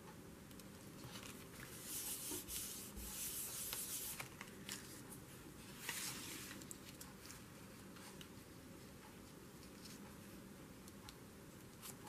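Hands rubbing and pressing paper cutouts flat onto a glued journal page: a faint paper rustle and rubbing, strongest from about two to four and a half seconds in and again around six seconds, with a few light ticks.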